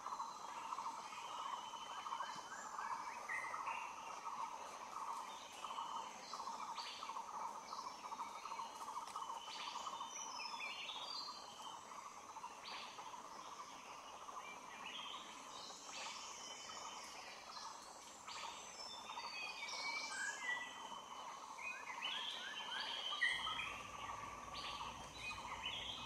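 Forest ambience: a steady, finely pulsing insect drone with many short bird calls and chirps over it, more of them in the second half.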